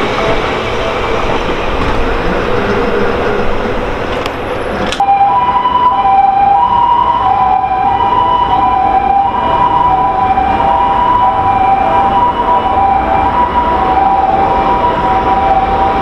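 A Seibu Shinjuku Line commuter train running away along the track. About five seconds in, a Japanese level-crossing warning bell starts ringing in two alternating tones, steady and loud, signalling the next train's approach.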